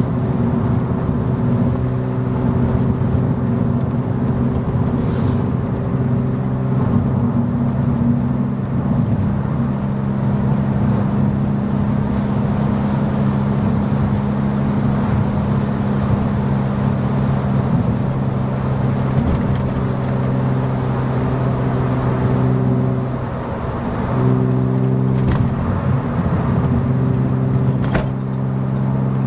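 Inside the cabin of a 1997 BMW E36 M3, its 3.2-litre straight-six and UUC RSC36 Corsa cat-back exhaust giving a steady cruising note over tyre and road noise. The note holds steady, with two brief dips late on. This steady-cruise sound is where exhaust drone would show.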